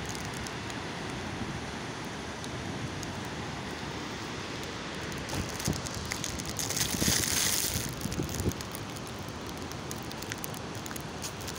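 Steady rushing noise of wind buffeting the phone's microphone outdoors. It grows louder and hissier for a second or so about seven seconds in.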